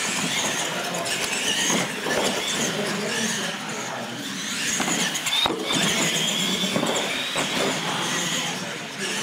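Radio-controlled monster trucks racing: their electric motors and gears make a high whine that rises and falls with the throttle, and the trucks knock and clatter over the ramps, with a sharp knock about five and a half seconds in.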